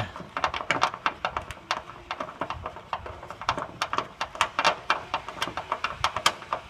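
Ratchet wrench clicking in quick runs of sharp clicks, several a second, as a nut is run down onto its bolt.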